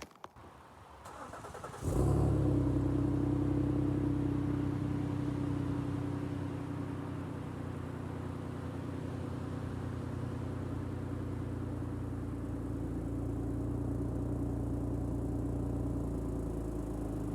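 Ford Taurus Police Interceptor sedan starting about two seconds in, then idling steadily through its dual exhaust, which has slip-on exhaust tips fitted for a sound test.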